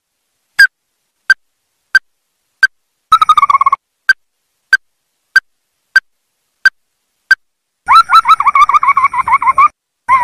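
Ruddy-breasted crake calling: a series of sharp single notes, about three every two seconds, broken about three seconds in by a short rattling trill. Near the end it breaks into a longer, rapid run of notes.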